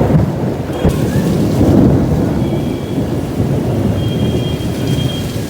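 Thunder rolling in a long rumble over rain, with a sharp crack just under a second in; the rumble is loudest in the first two seconds and slowly eases off.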